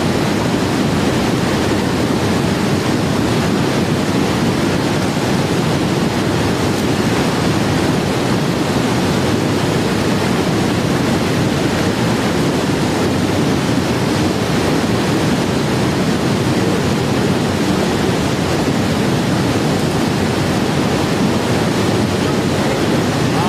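Loud, steady rush of river whitewater pouring over a weir and churning below it.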